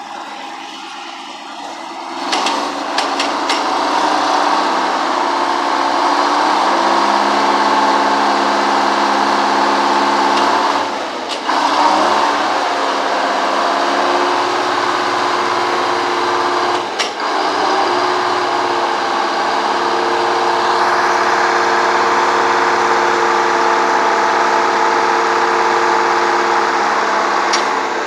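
1954 LeTourneau-Westinghouse Tournarocker's GM Detroit two-stroke inline-six diesel with blower running hard; it gets louder about two seconds in, and its note drops briefly twice, around the middle.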